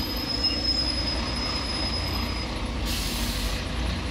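Bus and car traffic passing close by with a low engine rumble, and a steady high-pitched brake squeal from a slowing vehicle that stops about two and a half seconds in. A short hiss follows about three seconds in.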